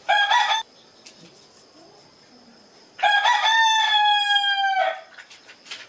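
A rooster crowing: a short call at the very start, then one long crow of about two seconds, slightly falling in pitch, about three seconds in.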